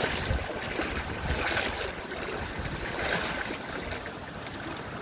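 Wind buffeting the microphone with a rumble, over a rushing hiss that swells three times and eases off slightly near the end.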